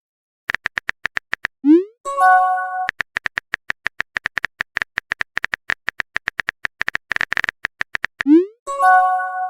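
Phone texting sound effects: rapid keyboard typing clicks, several a second, broken twice by a message alert, a quick rising swoop then a short chime, about two seconds in and near the end.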